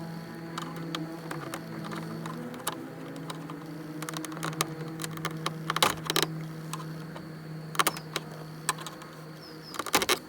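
Irregular plastic clicks and knocks as a broken interior door handle is worked loose from the door panel and its metal door-opening rod, with a steady low hum underneath.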